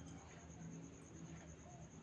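Near silence: faint room hum with a soft click about a second in.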